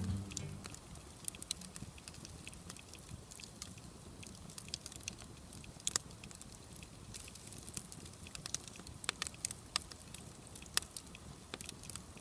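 Wood bonfire crackling softly: scattered, irregular sharp pops and clicks over a faint steady hiss.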